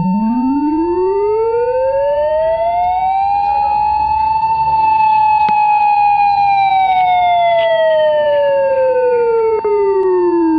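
Emergency Alert System alarm: a steady high alert tone held under a siren. The siren wails slowly up in pitch for about four and a half seconds, then slowly back down.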